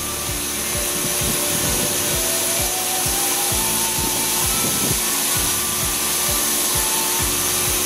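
Taiwan Railway EMU700 electric commuter train pulling out and picking up speed. Its traction-motor whine climbs in steps as it accelerates, over a steady rolling rumble and a string of wheel clacks at rail joints.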